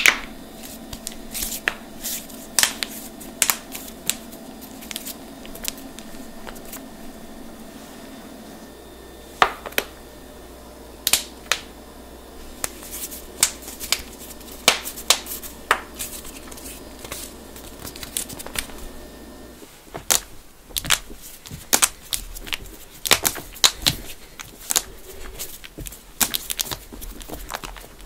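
Finger knuckles being cracked with interlaced, pressed hands: a long run of sharp, separate pops, some single and some in quick clusters, over a faint steady hum. After a cut near the end, more joint pops follow.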